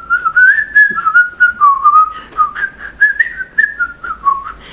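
A man whistling a tune, a quick run of short notes hopping up and down in pitch.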